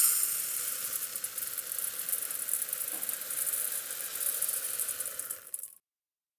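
Rice grains poured into a pan: a thinning trickle of grains hissing and rattling, which tails off and stops near the end, leaving a moment of silence.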